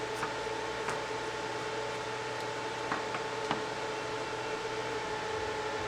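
Steady background hiss with a constant electrical-sounding hum, broken by a few faint clicks about one, three and three and a half seconds in.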